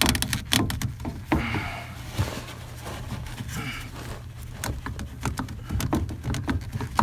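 ABS and PVC drain pipe and fittings being handled and worked into place: a string of irregular clicks and knocks of plastic with some scraping and rubbing, over a steady low hum.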